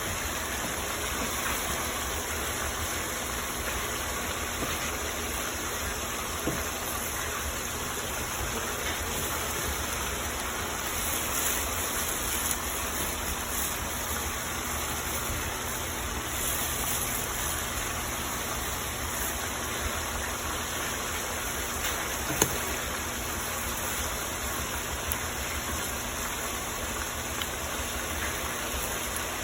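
Chicken breast pieces with onions and bell peppers sizzling steadily in a frying pan. A couple of sharp knocks stand out, the loudest about twenty-two seconds in.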